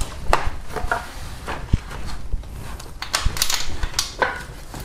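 Irregular clicks, taps and light metallic clatter as hands work among the hoses and metal parts of a car's engine bay.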